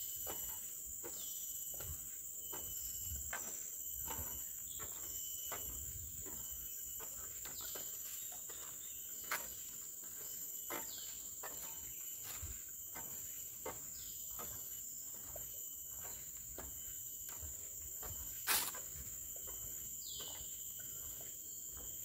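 Steady high-pitched drone of insects in tropical forest, with a hiker's regular footsteps on the trail underneath. A few short falling calls come over it now and then, and there is one sharper click near the end.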